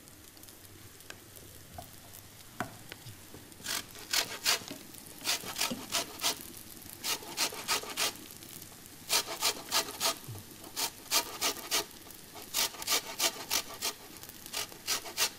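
Lemon rind being grated on a metal box grater: quick rasping strokes. They start a few seconds in and go on in runs of several strokes each, at about two to three a second.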